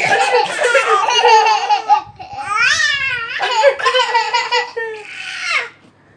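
A baby and a toddler laughing in bursts of giggles, with a high rising-and-falling squeal in the middle. The laughter stops shortly before the end.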